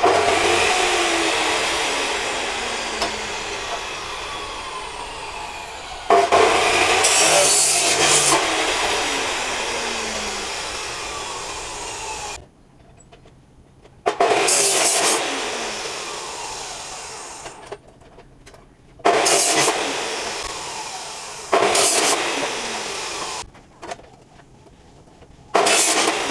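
Makita LW1401 abrasive cut-off saw cutting hollow steel tube. It makes several cuts in a row, each starting abruptly and slowly tapering off, with short quieter breaks between some of them.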